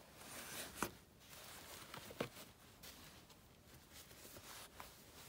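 Faint rustling of a cloth towel being laid over a plastic container, with a few light clicks and taps.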